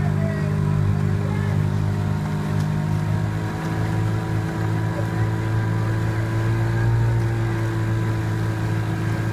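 Outboard motor of an aluminium coaching launch running at a steady speed, a constant low hum.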